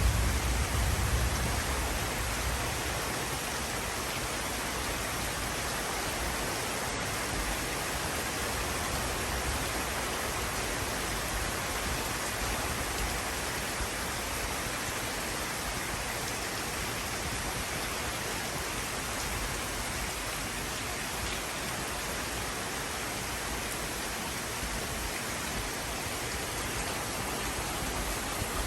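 Steady rain falling, an even hiss of drops with no break, a little louder with a low rumble in the first second or two.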